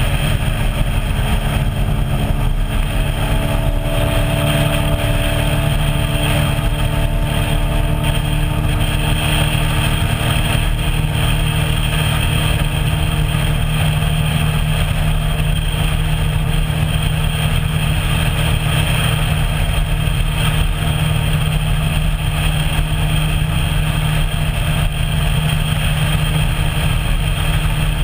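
A small motorboat's engine running steadily at cruising speed as the boat travels under way.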